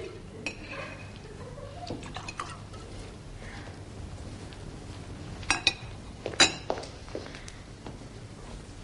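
Glassware and tableware clinking at a laid dinner table: a few light clinks, then two or three sharper, ringing glassy clinks about five and a half to six and a half seconds in.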